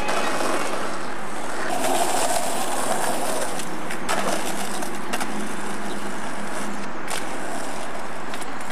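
Skateboard wheels rolling on concrete and asphalt, with a few sharp clacks of the board striking the pavement from about four seconds in.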